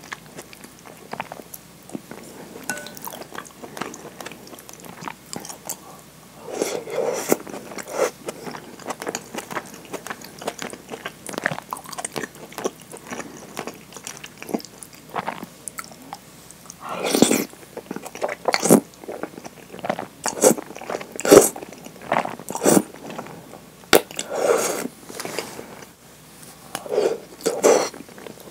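Close-miked eating sounds of thick curry udon: noodles slurped in several louder bursts, with chewing and small clicks in between.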